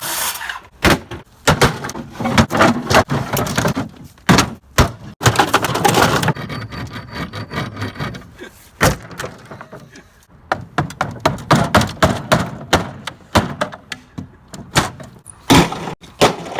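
An old wooden desk being cut and broken up: a fast, irregular run of knocks, thuds and cracking wood, with short rough noisy stretches between.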